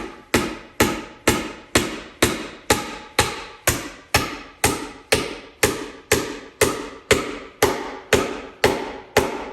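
Hammer driving cement-coated sinker nails into hard, rough-cut hardwood. It is a steady run of about twenty blows, roughly two a second, each strike ringing briefly.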